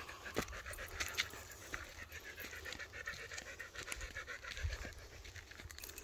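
A dog panting rapidly and steadily, with a few sharp crunching footsteps on a dirt trail.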